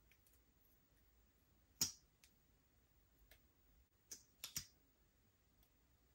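Near-silent room with a few scattered sharp clicks: one loud click about two seconds in, a couple of faint ones after it, and a quick run of three clicks a little past the four-second mark.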